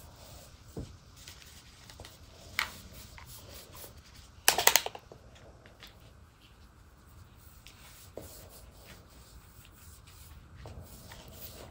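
Handling noises of staining work on wood: scattered small knocks and scratchy rubbing, with one brief loud rustle about four and a half seconds in.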